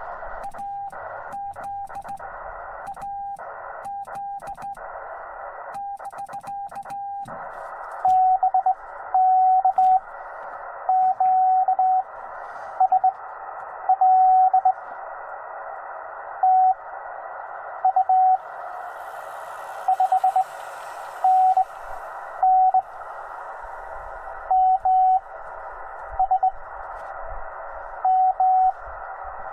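Morse code tones from a Yaesu FT-891 transceiver over steady receiver hiss. For the first seven seconds or so a keyed tone sounds while the hiss cuts in and out, the operator's own straight-key sending heard as sidetone. From about eight seconds a louder, slightly lower tone spells out short and long Morse elements from a received station.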